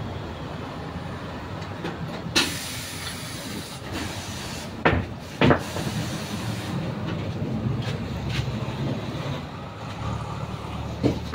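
Pneumatic tyre changer letting out a short burst of air hiss. Then two loud knocks about half a second apart as the car wheel is handled off the machine, and another knock near the end, all over a steady low rumble.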